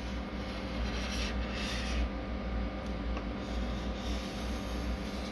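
A nearly dry felt-tip marker scratching and rubbing as it draws a curved line, with the scratchiest stroke about one to two seconds in, over a steady low room hum.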